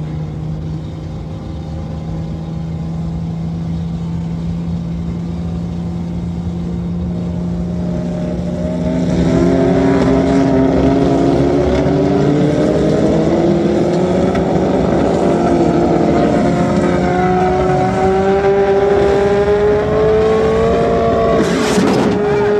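A motor vehicle engine: first a steady low hum, then from about eight seconds in a louder engine note that climbs slowly and steadily in pitch. A short rush of noise comes near the end.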